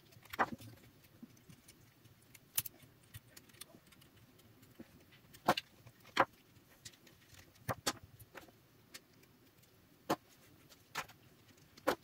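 Small metal tool prying spot-welded nickel strips off lithium-ion cells: about ten sharp metallic clicks and ticks, spaced irregularly, as the strips snap loose and are bent back.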